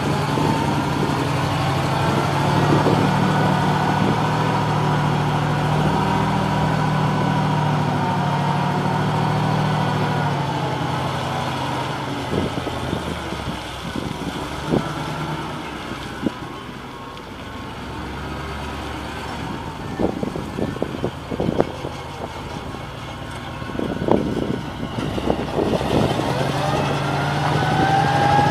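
Caterpillar T180 forklift's engine running as the truck drives about. It is loud and steady for the first ten seconds, then fainter through the middle with scattered knocks, and loud again near the end, rising in pitch.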